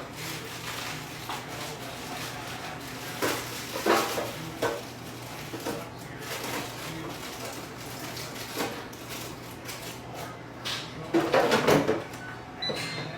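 Kitchen handling sounds: scattered knocks and clatter of drawers, cupboards and dishes, busiest about eleven seconds in, over a steady low hum.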